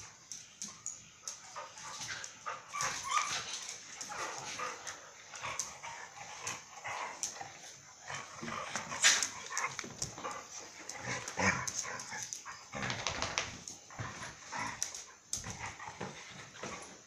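Dogs play-fighting: yips, whimpers and short barks, with many short clicks and scuffles, the sharpest about nine seconds in.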